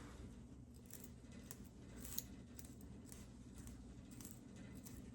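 Faint, irregular small clicks of tweezers plucking hairs from a lace wig's hairline, over quiet room tone.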